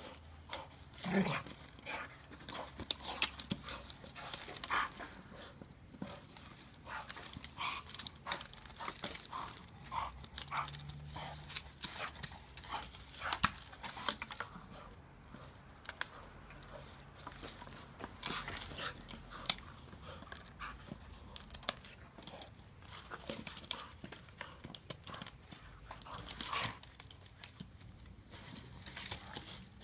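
A small terrier-mix dog playing with a dead wooden log on grass: an irregular run of scrapes, knocks and rustles as he grabs, chews and drags it, mixed with the dog's own sounds.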